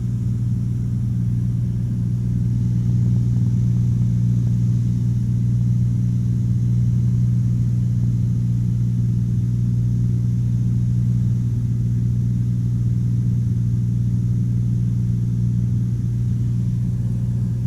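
Cessna 182's piston engine and propeller droning steadily in cruise, heard inside the cockpit. The pitch stays even, with no change in power.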